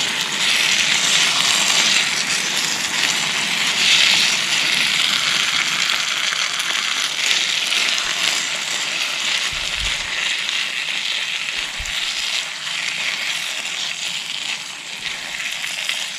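Pasta and sausages sizzling and crackling steadily in a pan as the last of the cooking liquid boils off, the sign that the one-pot pasta is nearly done. A couple of soft low knocks sound about two-thirds of the way through.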